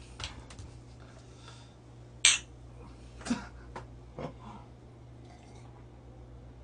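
A few short clinks and taps of drinking glasses and tableware, the sharpest about two seconds in and three or four smaller ones soon after, over a low steady hum.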